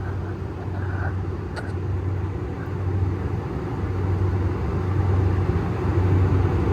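Steady low hum and rumble of running outdoor air-conditioner units, with the compressor and condenser fans droning on without a break.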